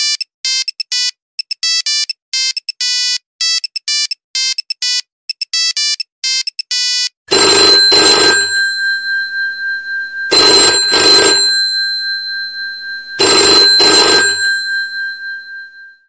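A Nokia 3310's monophonic ringtone: a quick tune of short electronic beeps. About seven seconds in it gives way to the electromechanical bell of an old rotary-dial telephone, ringing in pairs of short rings three times, each ring leaving a long metallic decay.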